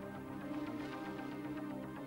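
Instrumental background music with sustained, steady tones.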